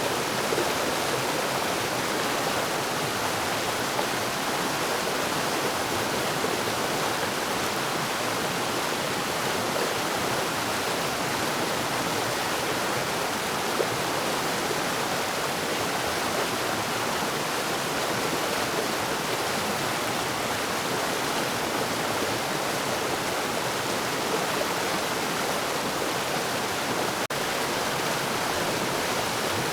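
Forest waterfall: water falling and splashing in a steady, even rush, with a split-second dip in level near the end.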